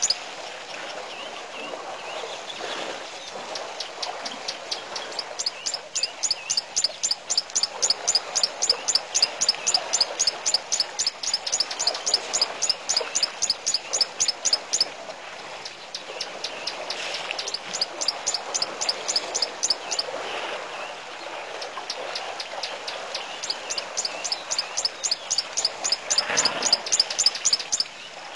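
A bird calling a fast series of sharp, high chirps, about five a second, in long runs that stop and start, over a steady background hiss.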